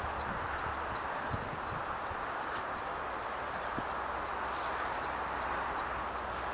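Distant, steady roar of a Boeing 737-500's CFM56-3 turbofans at take-off thrust during the take-off roll, with a high chirp from a bird or insect repeating about three times a second over it.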